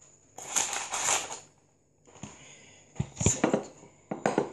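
A metal spoon clinking and scraping against a glass jar while cornstarch is stirred into a thick yogurt mixture, with several sharp knocks near the end. A short rustling hiss comes about half a second in.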